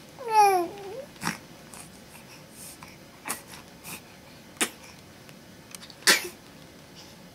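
A short high cry that falls in pitch about half a second in, then a run of small, sharp sneezes, about four of them, the loudest about six seconds in.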